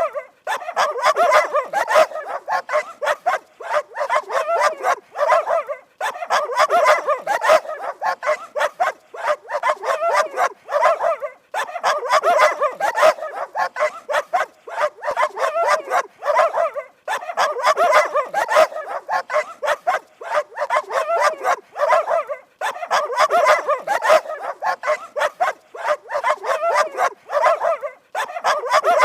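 Dogs barking fast and continuously, in dense runs of several seconds broken by brief pauses about every five seconds.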